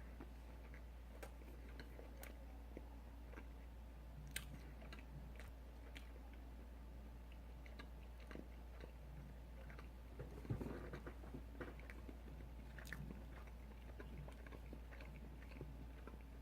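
Close-miked chewing and biting of a fried chicken strip: faint mouth clicks and smacks, with a louder bite about ten seconds in. A steady low hum runs underneath.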